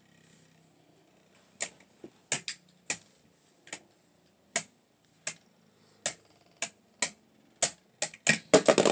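Two Beyblade Burst spinning tops, Archer Hercules one of them, clashing in a plastic stadium: sharp plastic clacks about every half second, crowding into a rapid flurry of hits near the end as the battle ends in a burst finish.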